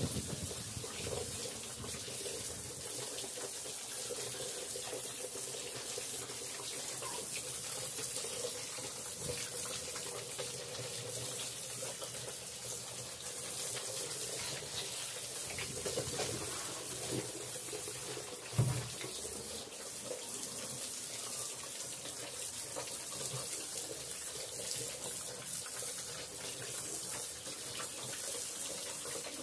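Garden hose spray nozzle jetting water onto pigs and a wet concrete pen floor, a steady hiss and splatter. A short low thump about two-thirds of the way through.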